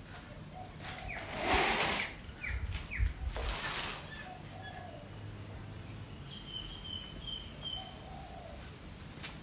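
Two short bursts of rustling noise, a second or so in and again about three seconds in. Then birds call in the background, with a quick run of about five short, high chirps.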